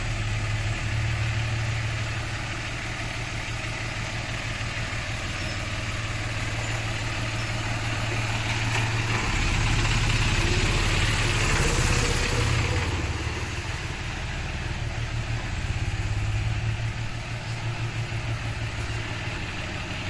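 John Deere diesel tractor engine running as the tractor is driven out of its shed, getting louder for a few seconds about halfway through as it pulls away.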